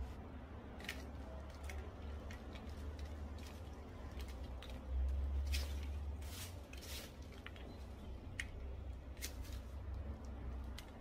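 Soil and fine roots crackling and crumbling as gloved hands break apart and shake the root ball of a potted weeping fig during repotting, with irregular little rustles and clicks, a busier stretch about halfway through. A low steady rumble runs underneath.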